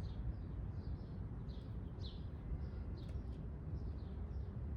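A bird chirping over and over, short falling chirps about two a second, over a steady low rumble.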